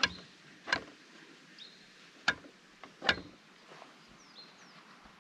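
Steel palette knife working thick paint on a canvas: four short scrapes and taps, with a few faint high bird chirps between them.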